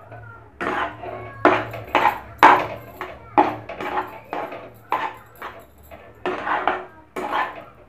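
A steel spoon scraping and stirring thick mashed-potato filling in a metal kadai, a quick, uneven run of scrapes about two a second.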